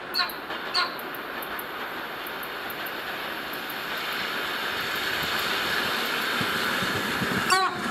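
ER9M electric multiple unit approaching: two short horn toots in the first second, then the steady rush of the oncoming train growing gradually louder as it nears.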